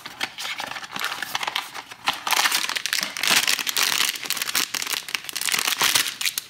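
A foil blind-box bag being torn open and crumpled by hand. Quieter scattered crackles come first, then a dense, rapid crinkling and crackling from about two seconds in.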